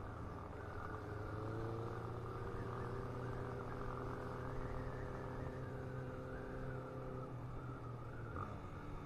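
Motorcycle engine running at a steady road speed, heard muffled from the rider's own bike. Its pitch rises slightly about a second in, and the higher tones drop away near the end.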